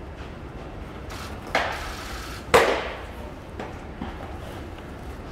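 A pitched baseball smacks into a catcher's leather mitt with a sharp, loud pop about two and a half seconds in, ringing off the walls of the indoor bullpen. A softer thud comes about a second before it.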